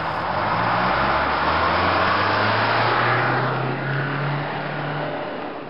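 Minibus engine pulling away and accelerating, its pitch rising over a few seconds, over steady road and cabin noise heard from inside the bus; it eases off near the end.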